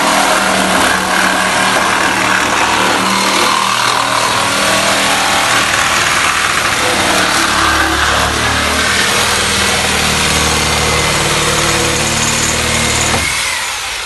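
Handheld electric cutting tool running under load as it cuts through a VW Kombi's steel chassis rail, then switched off about a second before the end and winding down.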